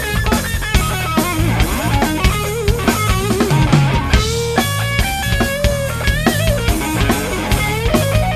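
Blues-rock band playing live between sung lines: electric guitar, bass and drum kit in a steady beat, under a lead melody of bending, wavering notes.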